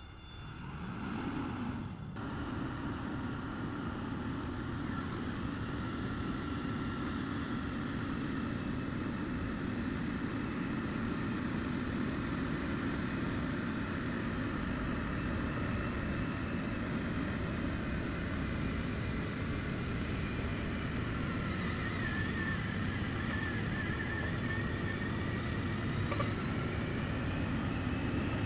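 Heavy diesel road-construction machinery running with a steady low rumble. Its engine note dips and then rises again about three quarters of the way through.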